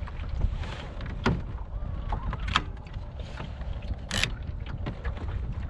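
Wind rumbling on the microphone, with scattered knocks and clicks from handling gear on a kayak, the sharpest about four seconds in.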